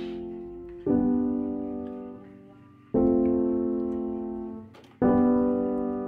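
Background piano music: slow chords struck about every two seconds, each one fading before the next.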